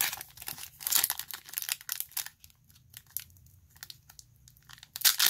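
Foil Pokémon booster pack wrapper crinkling in the hands, with cards being handled, in short crackly bursts; a loud crinkle comes near the end.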